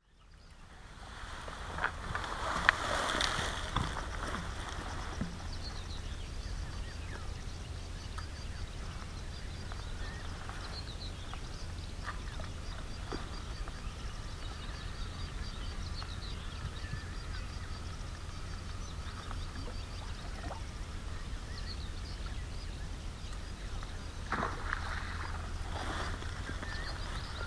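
Riverbank ambience: a steady low rumble of wind on the microphone, with faint bird calls over it and a few brief knocks near the start and again near the end.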